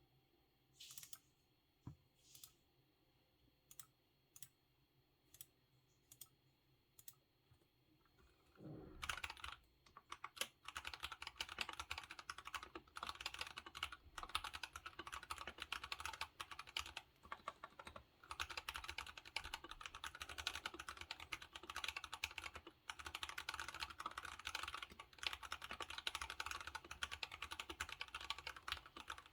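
Anne Pro 2 60% mechanical keyboard being typed on: single keystrokes a little under a second apart at first, then from about nine seconds in, fast continuous typing.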